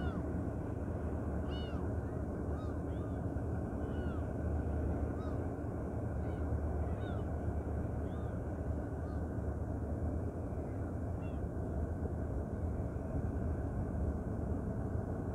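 Gulls calling over and over, short arched cries every second or so, thinning out after about eleven seconds. Under them runs the steady low drone of a car ferry's engines.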